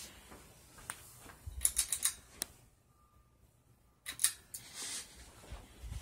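Ceiling fan running with a faint steady hum, broken by two clusters of sharp clicks and light rattles, about a second and a half in and again about four seconds in.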